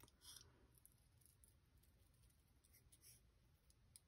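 Small scissors snipping paper, a few faint cuts: the clearest just after the start and another about three seconds in.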